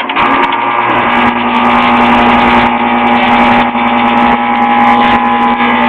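Goodman heat pump outdoor unit kicking on abruptly and running loudly, a steady mechanical hum and whir with a constant tone; a noisy unit typical of these Goodmans.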